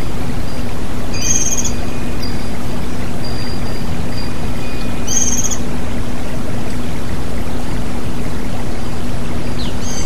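Forest stream rushing steadily over rocks and a small waterfall. A white-eye (pleci) gives two short, high, chirpy calls, one about a second in and one about five seconds in.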